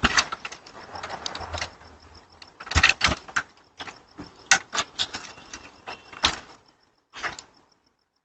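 A trash can being shifted and climbed on against a house: an irregular run of knocks, scrapes and thuds with a few sharp clicks, picked up by a doorbell camera's microphone.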